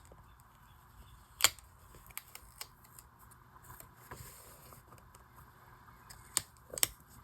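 Quiet handling of paper stickers on a journal page: a few sharp clicks, the loudest about a second and a half in and two more near the end, with faint small taps and rustles between.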